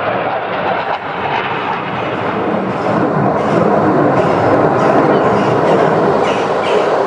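A Sukhoi Su-22 fighter-bomber's jet engine heard as the aircraft passes overhead, a loud, even noise that grows louder about three seconds in.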